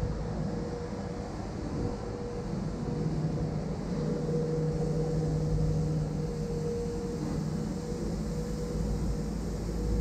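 A motor running steadily: a low rumble with a constant hum, over quiet city-street background noise.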